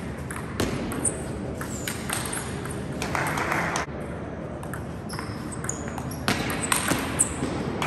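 Table tennis rally: the ball clicking back and forth off the rackets and the table in quick succession, with an echo from a large sports hall.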